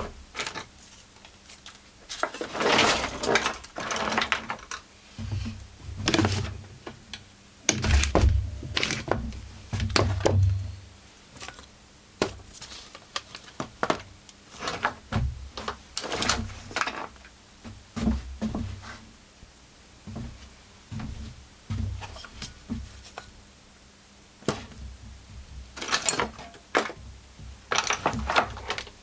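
Irregular clunks, clicks and scrapes of hand tools and parts being handled while a chainsaw is being taken apart, some knocks with a dull thud.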